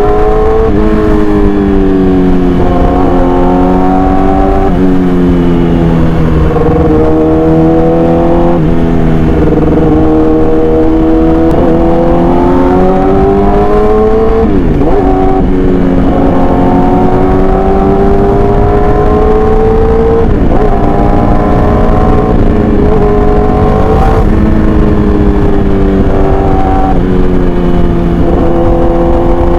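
Yamaha R6 inline-four with an SC Project exhaust, running at moderate revs under load. Its pitch climbs slowly and drops back sharply about six times, as with throttle and gear changes while riding.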